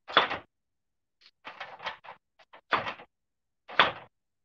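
Short knocks and scrapes of kitchen handling on a wooden cutting board: four or five separate clatters spread over a few seconds.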